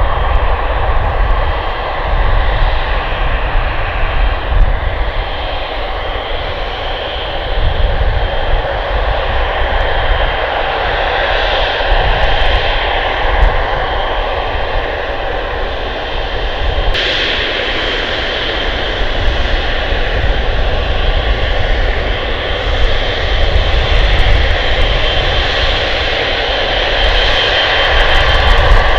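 Boeing 777-300ER's GE90 jet engines running steadily at low taxi thrust, with a deep rumble and a thin high whine over it; the high end grows brighter about halfway through.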